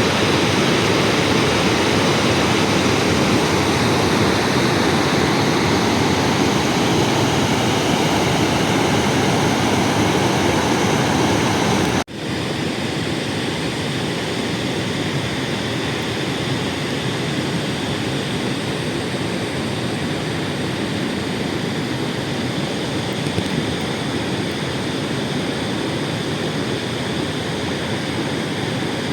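Steady rushing of a mountain river's water. About twelve seconds in it breaks off abruptly and resumes slightly quieter.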